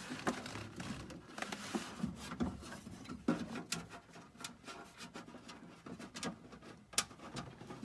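Faint rubbing and scattered small clicks of hands and loose drilled-out rivet pieces being handled inside a car door cavity.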